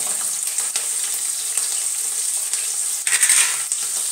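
Sliced onion and green chillies sizzling steadily in hot oil with whole spices in a steel kadai, with a louder spell of crackling about three seconds in.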